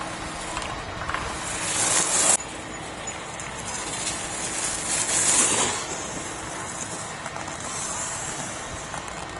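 Alpine racing skis carving giant slalom turns on hard-packed snow: a hissing edge scrape that swells with each turn, loudest and cutting off sharply about two seconds in, again around five seconds and more weakly near eight seconds.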